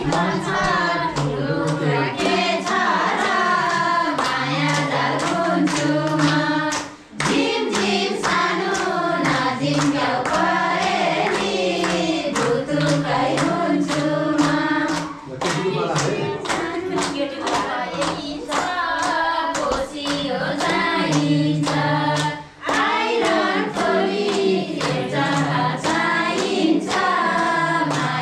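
A group of women's voices singing a Nepali song together in unison, kept in time by a steady beat of hand clapping, with short breaks between verses.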